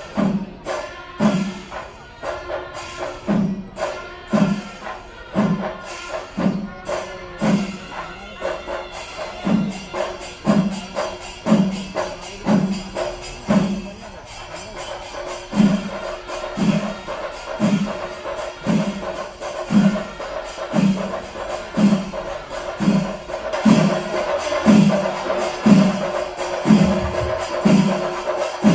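Kerala temple percussion ensemble playing for the elephant procession: drums strike a slow, even beat about once a second, quickening slightly in the second half, over the ringing of small hand cymbals and a steady held tone from a wind instrument.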